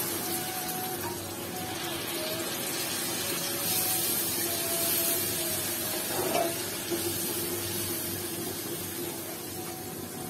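Water poured from a jug into a hot frying pan of tomato-and-spice curry paste, then a spatula stirring it in the pan, with a brief louder knock a little after the middle.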